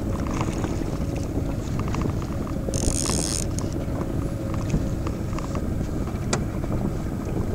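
Wind rumbling on the microphone over a boat's motor running steadily while trolling. A brief high-pitched buzz comes about three seconds in, and a single sharp click near the end.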